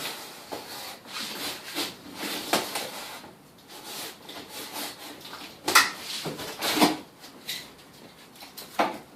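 A cardboard shipping box being worked open by hand: irregular scraping and rubbing of cardboard, with a few sharper, louder scrapes about six and seven seconds in.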